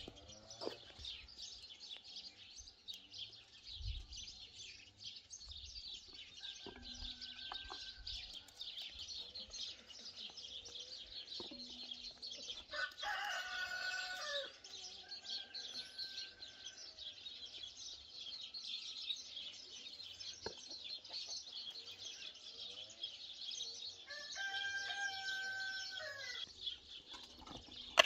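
A rooster crowing twice, each crow about two seconds long, once about halfway through and once near the end, over continuous twittering of small songbirds.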